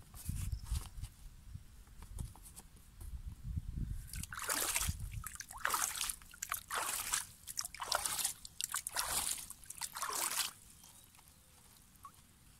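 Hands scooping pond water and pouring it over a freshly planted clump of bank plants: a run of about six splashes and trickles from about four seconds in, stopping at about ten seconds. A low rumble comes before them.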